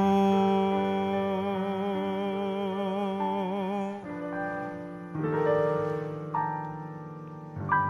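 Slow instrumental church music: sustained keyboard chords held for a second or more each, with a slight waver in the tone midway through.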